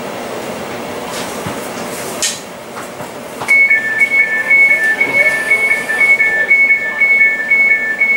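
Class 345 train's door-closing warning: rapid electronic beeping that alternates between a high and a slightly lower note, starting about three and a half seconds in. It is preceded by a short hiss about two seconds in.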